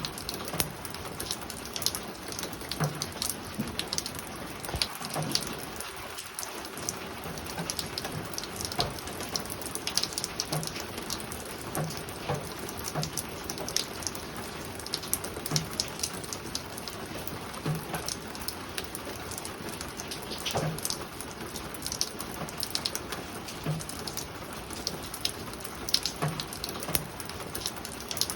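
Spring rain falling on a roof: a steady patter of many single drops ticking irregularly, with scattered dull low taps.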